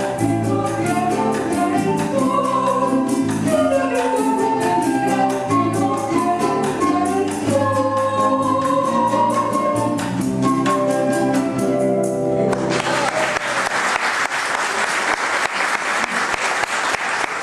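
A soprano sings the final phrases of a Venezuelan waltz over a small plucked-string ensemble with guitar. About twelve and a half seconds in, the music ends and the audience applauds.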